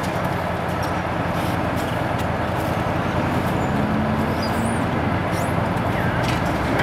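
Steady road-traffic noise with engines rumbling at idle, and a brief steadier engine note a little after the middle.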